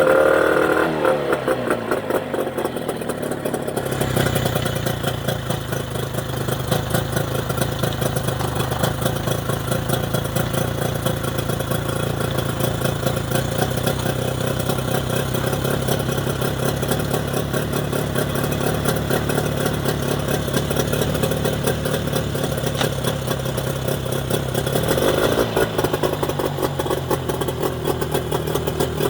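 Mercury 25 hp two-stroke outboard motor falling from high revs to a steady, even idle, with one short rev near the end. It is running on newly fitted Boyesen power reeds, which cured its earlier rough idle.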